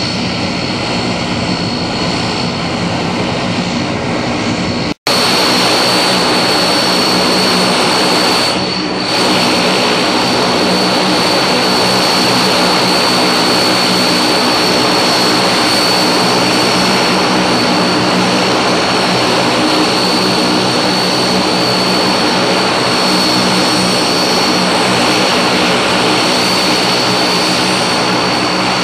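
Antonov An-12's Ivchenko AI-20 turboprop engines running on the ground after start-up: a steady, loud propeller drone with a high turbine whine over it. About five seconds in the sound breaks off for an instant and comes back a little louder, with the whine stronger.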